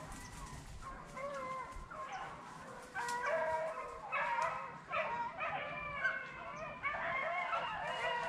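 A pack of beagles baying on a rabbit's track, several voices overlapping, growing louder and busier about three seconds in.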